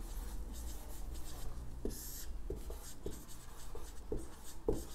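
Someone writing by hand: a run of short scratchy writing strokes with a few faint taps.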